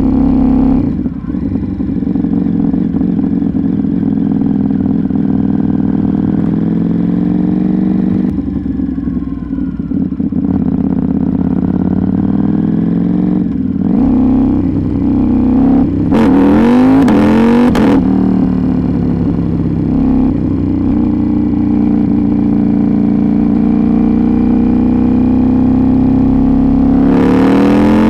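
KTM 790 Duke's parallel-twin engine running through an Arrow GP2 exhaust with the catalytic converter and baffle removed, heard on the move. The engine holds a steady pitch for long stretches, with a burst of quick revs rising and falling about halfway through and another climb near the end. The bike is still power-restricted.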